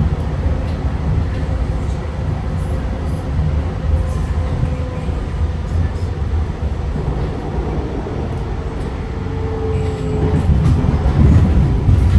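Inside a TriMet MAX light rail car running between stations: a steady low rumble of wheels and track. Near the end the rumble grows louder and a faint whine falls in pitch as the train begins to slow for the next stop.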